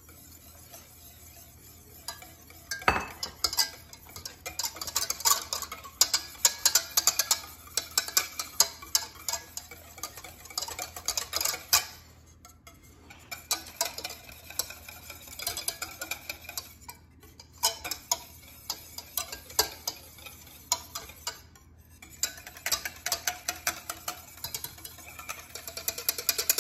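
Wire whisk beating egg yolks and oil into mayonnaise by hand in a stainless steel saucepan: rapid clicking and scraping of the wires against the metal, starting about two seconds in with a sharper knock, and stopping briefly a few times.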